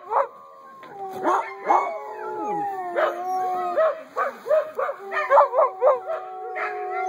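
Several husky puppies howling together, long held notes at different pitches overlapping, with short yips and barks mixed in that come thicker in the second half.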